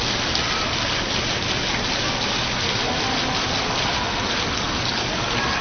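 Fountain water falling and splashing in a steady, even rush.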